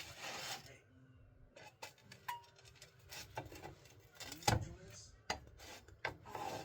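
A utensil rubbing and scraping against a cooking pan, with scattered light clicks and one sharp knock about four and a half seconds in.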